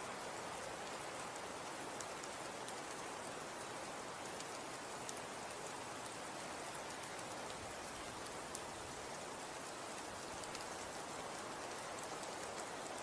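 Snow falling: a steady, even hiss with many tiny scattered ticks of flakes striking surfaces, much like light rain.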